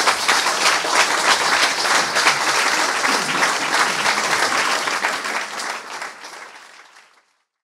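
Audience applauding, a dense patter of many hands clapping that fades away over the last two seconds into silence.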